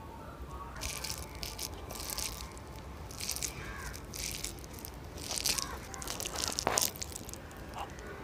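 Fingers squeezing and mixing cooked rice with fish curry, a string of short wet crackling squishes about every second, the loudest a little before the end.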